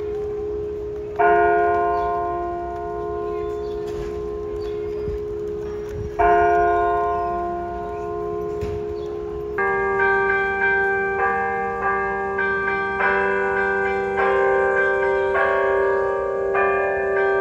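The large bronze bell of the Delacorte Musical Clock is struck twice by its hammer-wielding monkey figures, about five seconds apart, each stroke ringing out and slowly fading. About ten seconds in, the clock's tuned bells start playing a tune of quick, bright notes.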